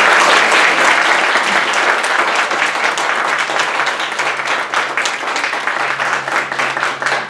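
Audience applauding, a dense patter of many hands clapping that starts strongly and eases off toward the end.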